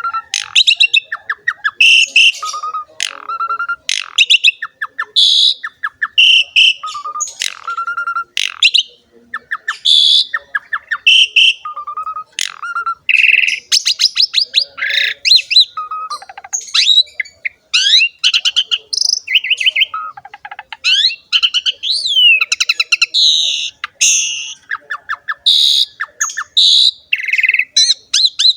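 A pied starling (jalak suren) in full, continuous song: a loud, varied string of whistled notes, rapid rattling trills, pitch glides and harsher squawky calls with hardly a pause.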